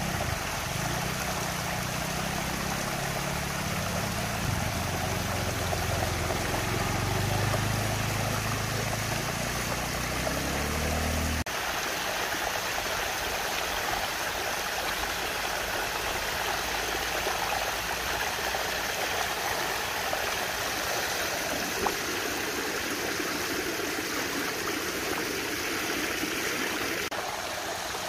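Steady rushing of water swirling down a large whirlpool vortex. A low, wavering hum runs underneath for the first eleven seconds or so, then cuts off suddenly.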